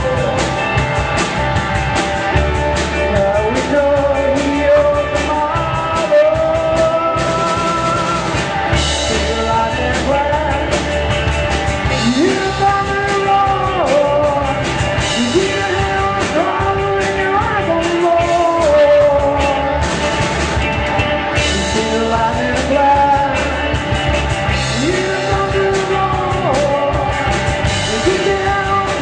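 Rock music with singing and electric guitar over a steady bass and drum backing.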